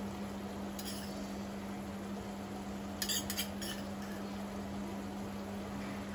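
A small steel spoon clinking lightly against stainless steel cookware a few times, with a sharper clink near the end, over a steady low hum.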